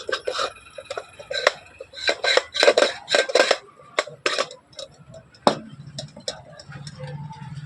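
Metal clinks and knocks as a ceiling fan's metal body is handled and opened, a quick run of sharp clicks over the first five seconds or so. A low steady hum comes in about four seconds in.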